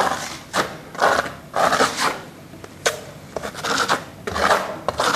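Trowel scraping and tapping thick plaster onto a rough textured wall in short repeated strokes, a little under two a second, each starting sharply.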